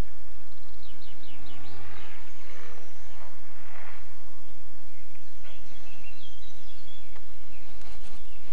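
Birds calling and chirping, with quick pitch sweeps and short calls scattered through, over a steady low noise.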